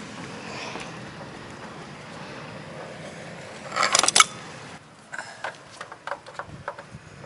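Metal hand tools (pliers and screwdrivers) clinking and clattering briefly about four seconds in as one is picked out of a pile on the deck, over a steady hiss. A few lighter ticks and knocks follow.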